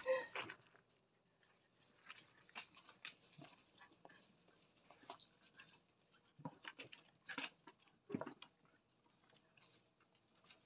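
Faint, scattered ticks and scuffles of young puppies moving about and playing on a dirt yard.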